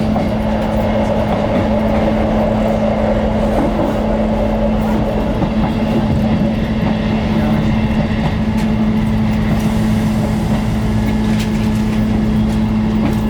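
Railway train running steadily along the track, a constant hum over a rumbling noise, with a few faint clicks from the wheels on the rails in the later part.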